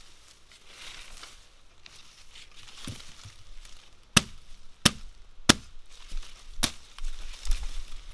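Hatchet chopping into a branch of a fallen dying tree: four sharp blows of the steel head into wood, starting about four seconds in, three in quick succession and then a fourth after a short pause.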